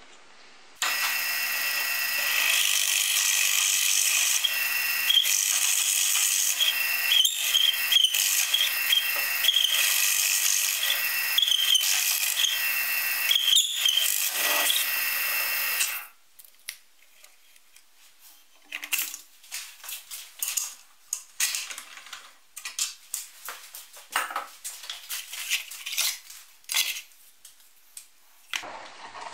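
Drill press running with a large Forstner bit boring through plywood, a steady machine drone that starts suddenly about a second in and cuts off after about fifteen seconds. After that come scattered light knocks and clatters of wooden pieces being handled.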